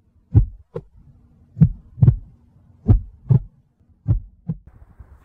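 Heartbeat sound effect: pairs of short low thumps, lub-dub, about one pair every second and a quarter, over a faint steady low hum.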